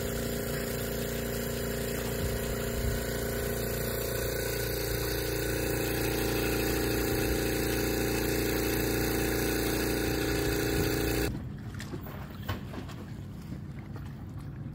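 Hookah dive air pump running steadily at one pitch. It cuts off abruptly about eleven seconds in, leaving a quieter background with a few light knocks.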